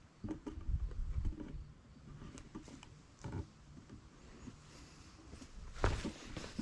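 A hiker's footsteps and scuffs on a rocky trail: scattered irregular clicks and knocks, with a louder knock about six seconds in.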